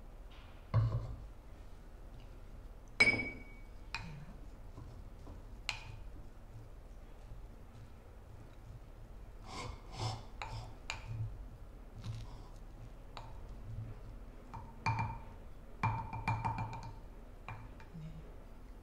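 Ceramic donabe rice pot and its lid knocking and clinking: a low thud about a second in, a bright ringing clink near three seconds, then scattered taps. These are followed by clusters of knocks and ringing clinks around ten and again around fifteen to sixteen seconds, as a wooden rice paddle strikes and scrapes against the clay pot while freshly cooked rice is fluffed.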